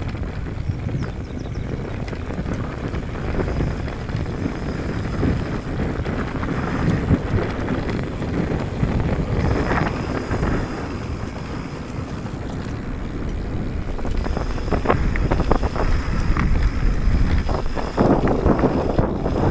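Mountain bike riding fast over rough, rocky trail, with wind rushing over the microphone. Scattered knocks and rattles from the tyres and bike striking rocks.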